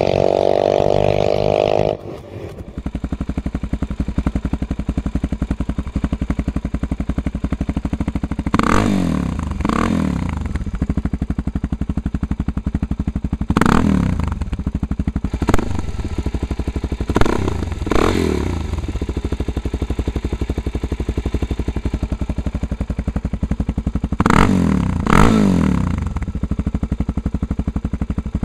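Suzuki DR-Z400's single-cylinder four-stroke engine running through a White Bros aftermarket exhaust. It idles with a steady beat and is blipped about eight times, mostly in pairs, each a quick rise and fall in revs. For the first two seconds the bike is heard running at higher revs on the road, with a different aftermarket pipe.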